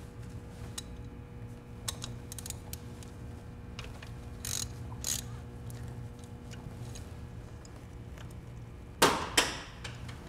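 Ratchet wrench and spark plug socket clicking as a spark plug is worked loose from the cylinder head, with light tool clinks and two louder metal knocks about nine seconds in.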